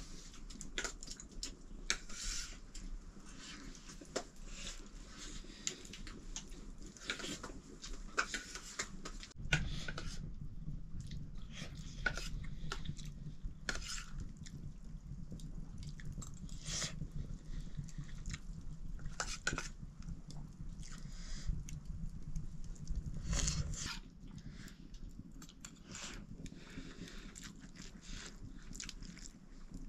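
Close-up eating sounds: chewing and biting, with many small clicks and knocks. A low steady rumble comes in about a third of the way through and stops suddenly about three quarters of the way through.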